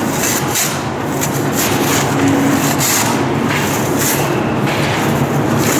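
Slalom skis scraping across hard indoor snow in quick short turns, a hiss with each turn roughly every half second, over a steady machine hum.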